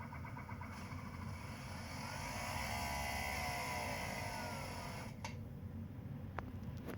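Air-conditioning system of a 2021 Mini Cooper SE electric car making the faulty noise. A whine with a hiss swells and rises in pitch, then falls, and cuts off with a click about five seconds in, over a steady low hum.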